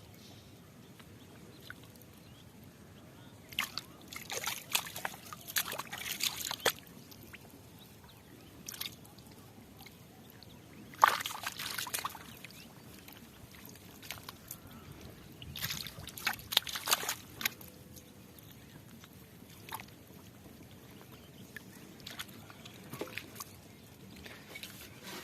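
Shallow muddy water splashing and sloshing in three bursts, the loudest about eleven seconds in, with quiet stretches and a few small splashes between.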